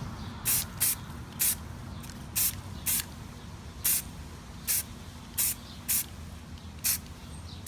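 Aerosol spray paint can of flat primer hissing in about ten short bursts, lightly misting paint onto a model train car.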